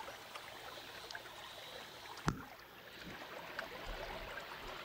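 Faint trickle of a shallow stream with water washing around a wooden gold pan (batea) held in it, as lighter material is rinsed off the black sand in the pan, with small ticks and one sharp click a little over two seconds in.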